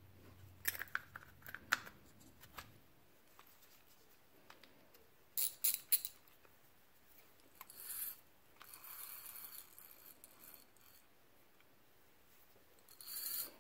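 Hands working a Zebco 11 spincast reel: light clicks and scrapes of its small metal parts, a quick cluster of sharp clicks about five to six seconds in, and a longer faint rough stretch later.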